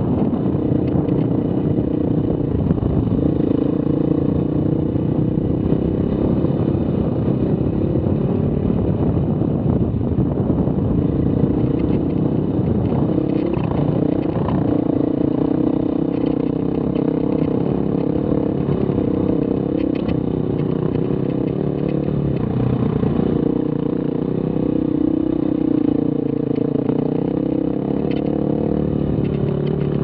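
Dirt bike engine running steadily at a low, even pace on a rough dirt trail, heard from a helmet-mounted camera, with a few sharp ticks from the ride.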